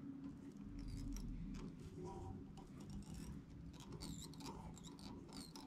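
Faint handling sounds of tying hair onto a ball-head jig in a vise: thread wrapped from a bobbin, with scattered small ticks and squeaks, over a low steady hum.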